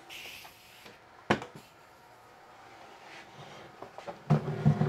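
A single sharp wooden knock about a second in, then near the end a plywood cabinet carcass being gripped and shifted on a workbench, wood scraping and bumping against the bench.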